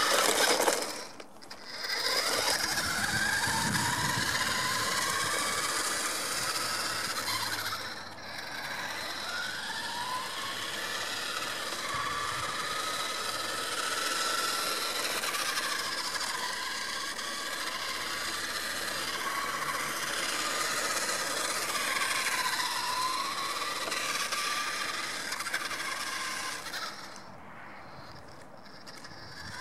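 Nikko Stalker RC truck's electric motor and gears whining, the pitch rising and falling as it speeds up and slows. The sound drops out briefly about a second in and again around eight seconds in, and goes quieter near the end.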